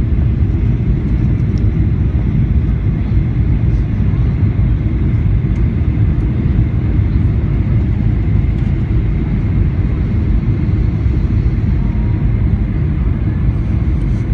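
Steady cabin noise inside a Boeing 737 on descent with its flaps extended: a loud, even low rumble of engines and rushing air, with a faint high steady whine over it.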